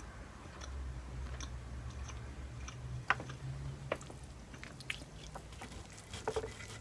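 A person chewing and biting food close to the microphone: scattered wet mouth clicks and small crunches, the sharpest about three seconds in.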